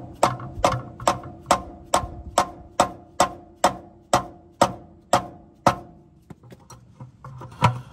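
Hammer tapping on a wrench fitted to the square drain plug of a 1958 Ford 871 Powermaster tractor's oil pan. About a dozen ringing metal knocks come at roughly two a second, then a few lighter taps and one hard blow near the end. The plug is stuck fast and has not been opened in a long time.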